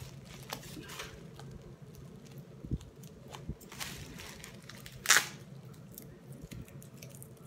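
Plastic packaging film on a parcel crinkling and crackling as it is handled and cut open with scissors, in scattered short clicks, with one loudest crackle about five seconds in.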